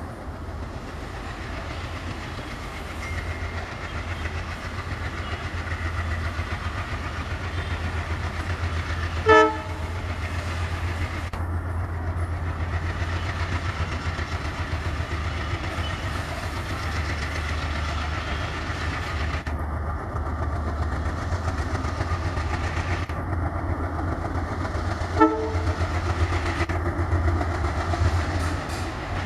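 Twin WDG-class diesel locomotives hauling a freight rake, their engines giving a steady low drone. The horn sounds two short blasts, one about nine seconds in and another about 25 seconds in.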